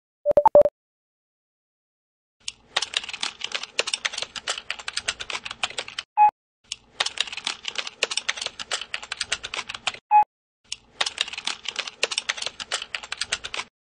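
Rapid typing on a laptop keyboard in three bursts of a few seconds each. A short electronic beep follows each burst, and a brief beep tone sounds just after the start.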